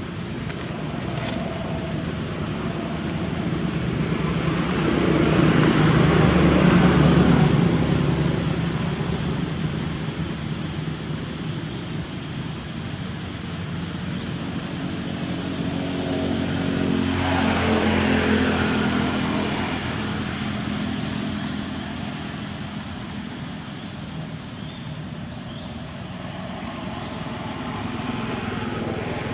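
Motor vehicles passing by twice, swelling and fading about five seconds in and again near the middle, over a constant high-pitched drone.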